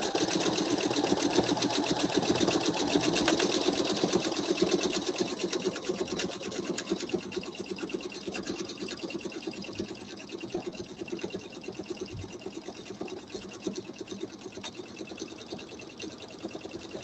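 Pfaff computerized sewing machine stitching fast in free-motion quilting, the needle going up and down in a quick, even rhythm. It runs louder for the first five seconds or so, then quieter for the rest.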